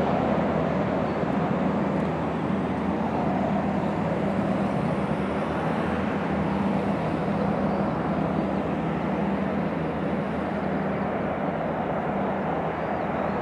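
Jet engines of an Airbus A330 airliner running through the flare, touchdown and rollout on landing. A steady noise that slowly fades as the plane moves away down the runway.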